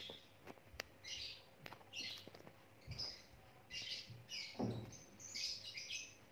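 Birds chirping in short high bursts about once a second, coming closer together near the end. Clicks and a low thump about four and a half seconds in come from the phone being handled.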